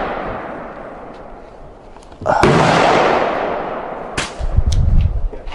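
Gunshots from another shooter on the range, each ringing and echoing away over a couple of seconds: the fading tail of one shot, then a fresh shot about two seconds in. Near the end comes a sharp click, followed by low rumbling.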